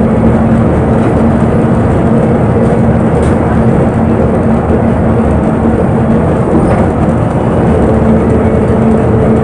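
Interior of a moving bus: loud, steady engine and road rumble with a constant low hum.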